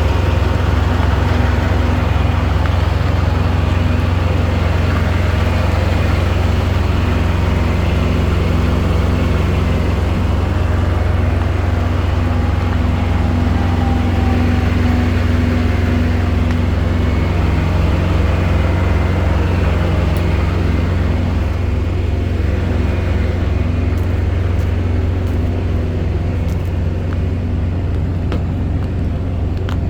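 A heavy truck's diesel engine running with a steady low drone and road noise. The higher noise eases off slightly in the last several seconds.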